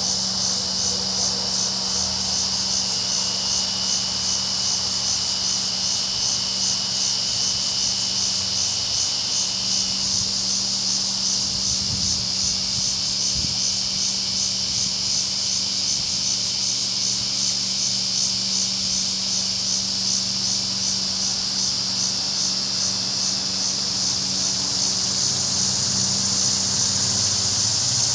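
Steady high-pitched insect chorus, an even pulsing buzz that grows a little louder near the end, over a low steady hum.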